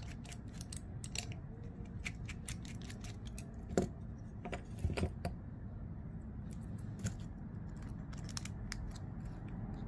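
Scattered light metallic clicks and taps as a pocket clip and its tiny screws are fitted to a folding knife's handle, over a steady low hum. The sharpest clicks come in the middle, and one more near seven seconds.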